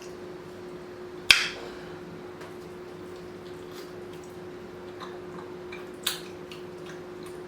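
Close-miked eating sounds of rotisserie chicken being bitten and chewed: wet smacks and clicks, with a sharp smack a little over a second in and another near the end, over a steady low hum.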